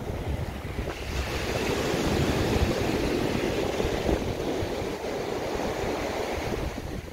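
Surf washing onto a sandy beach, swelling about a second in, with wind gusting on the microphone underneath.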